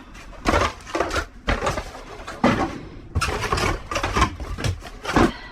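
Rummaging through cardboard boxes of discarded office items: irregular rustling, scraping and knocks as things are handled and shifted.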